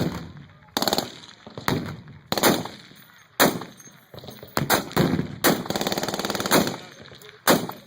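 Machine-gun fire: separate shots and short bursts, each trailing off in an echo, then a sustained rapid burst of about a second past the middle and one more shot near the end.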